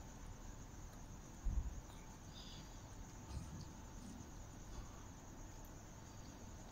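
Steady high chirring of night insects, with a low thump about one and a half seconds in and a smaller one a couple of seconds later.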